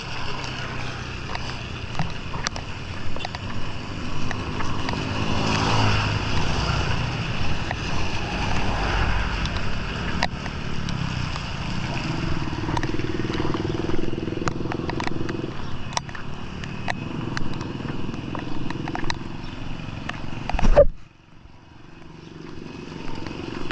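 Street traffic with motor vehicles, motorcycles among them, going by over a steady wash of noise scattered with sharp clicks. Near the end there is a loud knock, and then the sound drops off abruptly.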